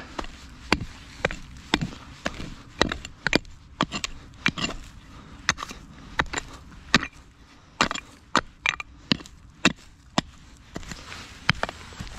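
A hand digging tool striking stony ground again and again, sharp clacks about twice a second with a few louder strikes.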